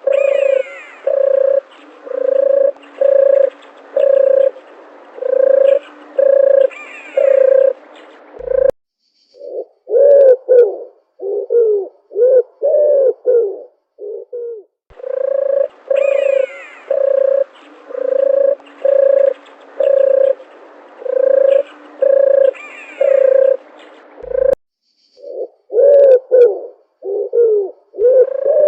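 Doves cooing: a run of short, evenly spaced low coos, about one and a half a second, then a pause and a quicker cluster of shorter coos that fall in pitch. The whole sequence plays twice, with fainter, higher bird calls behind the first runs of coos.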